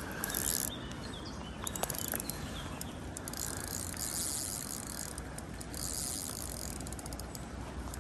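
Fishing reel's ratchet or drag clicking in repeated bursts of rapid ticks as a hooked carp takes line.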